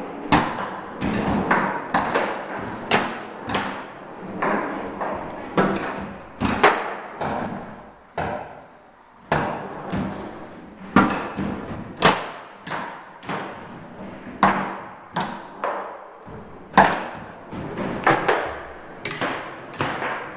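Table football game: the ball struck by the figures on the rods and banging against the table's sides, an irregular run of sharp clacks and thuds, about one or two a second, with a short lull about eight seconds in.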